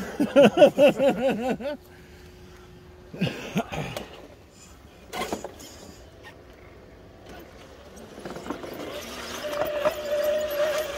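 Electric motor of an RC rock crawler whining in quick rising-and-falling pulses, about five a second, for the first two seconds, as the throttle is worked. A short burst follows, then a steady, slightly wavering whine in the last second or two.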